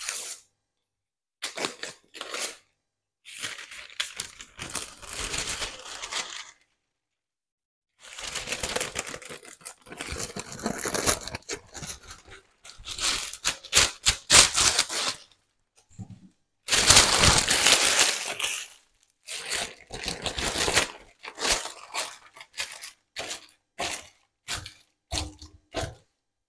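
Baking parchment rustling and crinkling as it is pulled off its roll, torn off and pressed into a baking tray, in a run of irregular bursts with short gaps between them.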